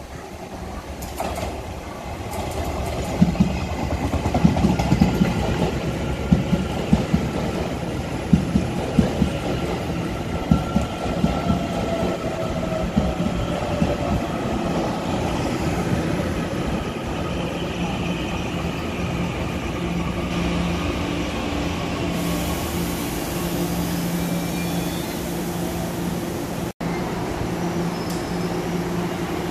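Taiwan Railway tilting express electric multiple unit running along the platform: its noise swells as it arrives, then the wheels clack rhythmically over the rails for about ten seconds before settling into a steady rolling hum. There is a momentary break near the end.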